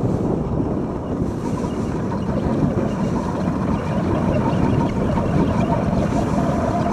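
ALS Supersport sport toboggan's runners scraping and hissing steadily over cold, groomed snow as it slides downhill and slows, with wind rumble on the microphone. A faint thin whine joins about a second and a half in.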